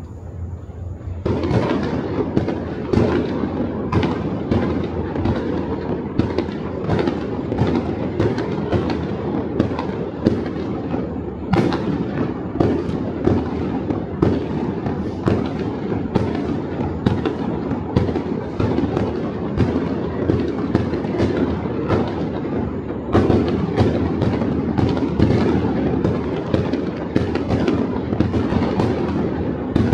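Fireworks and firecrackers going off all over a city: a dense, unbroken rattle of many overlapping bangs and pops. It swells sharply about a second in and again about three-quarters of the way through.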